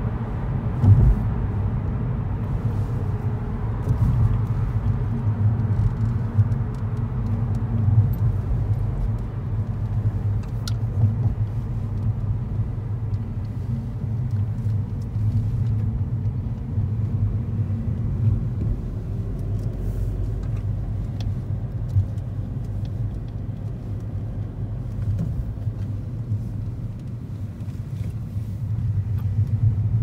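A car driving on the road, heard from inside the cabin: a steady low rumble of engine and tyres, with a brief bump about a second in.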